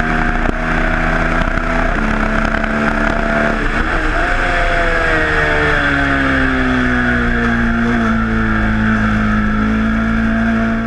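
Ducati Monster 1200's Testastretta L-twin engine at high revs on the straight, with wind rushing over the microphone. About three and a half seconds in the engine note steps up and then falls steadily as the bike brakes and downshifts for a corner, settling into a steady note for the last few seconds.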